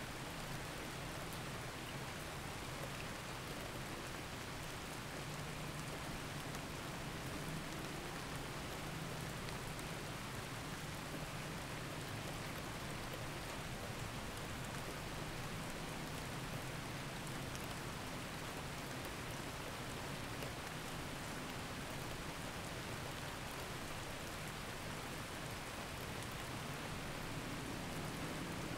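Steady recorded rain, an even hiss with faint patter of drops, over a steady low drone.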